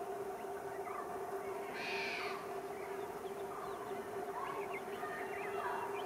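Steady two-tone hum from an approaching WAP-7 electric locomotive, with short bird chirps scattered over it and a brief hiss about two seconds in.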